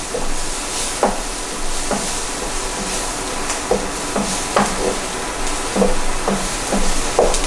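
Caramelised onions and garlic sizzling in oil in a frying pan as they are stirred with mixed herbs. A utensil scrapes and knocks against the pan in short, irregular strokes, about one a second.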